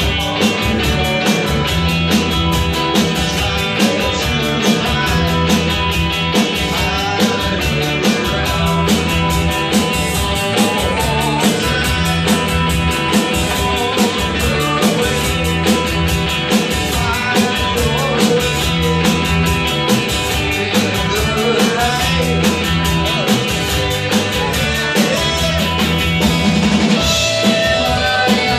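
Live rock band playing: electric guitar over a steady drum-kit beat, doubled by a second percussionist on floor tom and snare.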